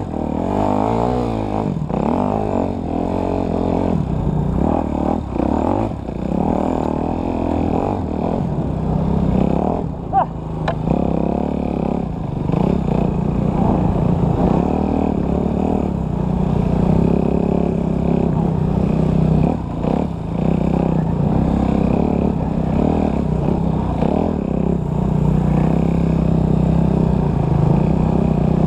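Enduro dirt bike engine running as the bike is ridden along a rough trail, its revs rising and falling with the throttle, with occasional knocks and rattles from the bike over bumps.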